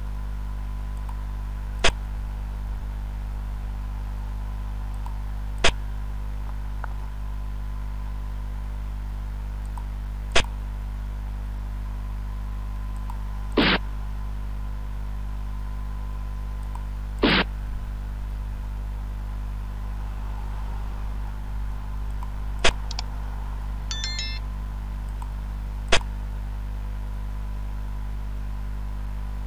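Xiangqi game software's piece-move sound effects: seven sharp clicks a few seconds apart, two of them (near the middle) slightly longer clacks, over a steady low electrical hum.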